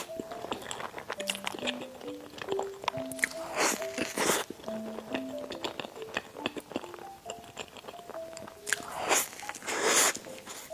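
Close-miked eating sounds, with crisp biting and crunchy chewing in several bursts, the loudest near the end. A simple, gentle background melody plays throughout.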